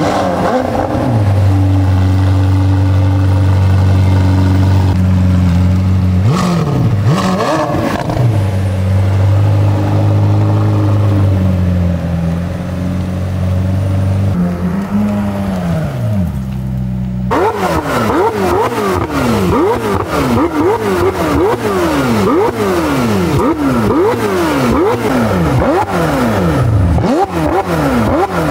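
McLaren 720S twin-turbo V8 through a titanium X-pipe exhaust on stock downpipes, running at steady revs with a few brief rises and dips. Then, after a sudden cut, the revs climb and fall again and again in quick succession.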